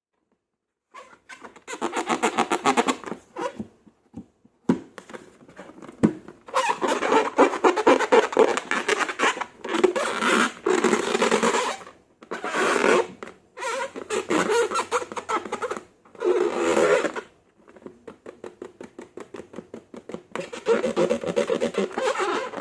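Slime being squeezed and kneaded by hand: crackling, squelching bursts of one to three seconds with short pauses between them, starting about a second in.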